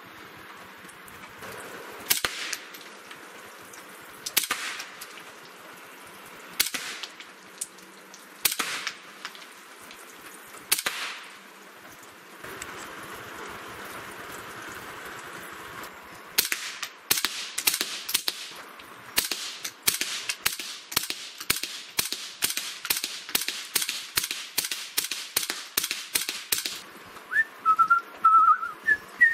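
Ruger 10/22 semi-automatic rifle firing 40-grain subsonic .22LR rounds: five single shots about two seconds apart, then a quick string of about thirty shots over some ten seconds. A few loud, high chirps follow near the end.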